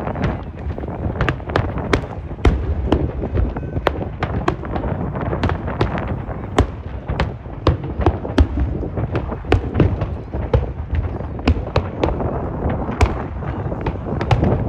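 Aerial fireworks display going off: a continuous barrage of sharp cracks and bangs, several a second, over a low rumble of overlapping bursts.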